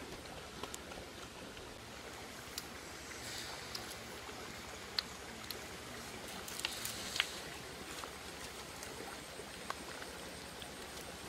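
Steady rush of a shallow stream flowing over stones, with a handful of sharp clicks and taps scattered through it.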